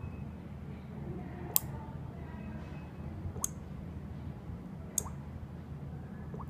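Alarm panel relay clicking sharply four times, about one every second and a half, as it is switched on and off from the smartphone app, over a low steady hum.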